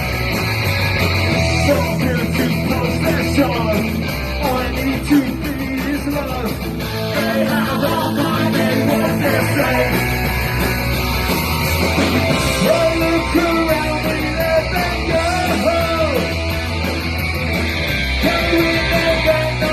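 Live punk rock band playing loud.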